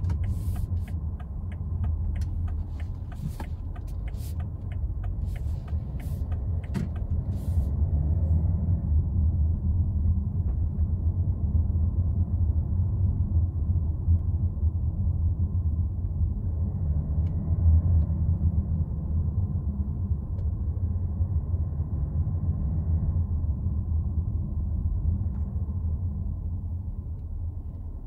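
Interior cabin sound of a BMW X3 xDrive30d (G01), its 3.0-litre inline-six diesel and tyres making a steady low rumble while driving. A string of light clicks runs through the first seven seconds, and the rumble eases off near the end.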